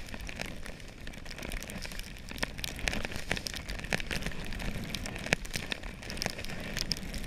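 Skis running through deep powder snow: a steady hiss full of small crackles and clicks.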